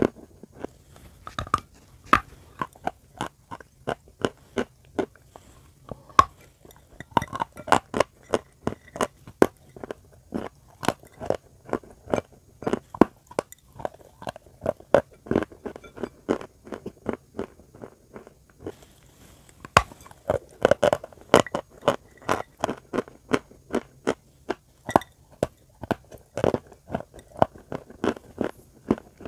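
Close-up chewing of edible chalk and white clay paste: a steady run of crisp, gritty crunches, about two to three a second, with a short pause about two-thirds of the way through.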